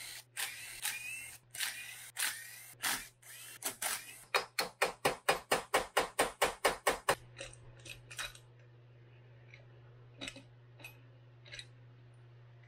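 Cordless impact driver running in short bursts, each with a rising whine, as it backs out the crankcase bolts of a Yamaha YZ250F engine. Then a run of about a dozen quick, even hammer taps on the aluminium case to split it. A few light metallic clicks follow as the case half comes free.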